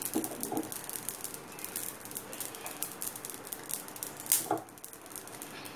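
Faint kitchen rattling with scattered small clicks, and a sharper clatter about four and a half seconds in.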